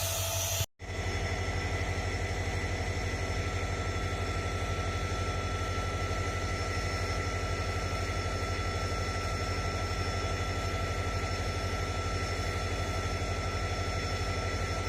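A stationary train locomotive running steadily: a strong low rumble with thin, steady high whines. The sound drops out briefly under a second in, then carries on unchanged.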